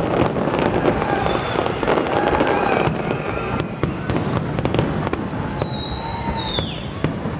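Fireworks grand finale: a dense, continuous barrage of aerial shell bursts, with rapid overlapping bangs and crackling.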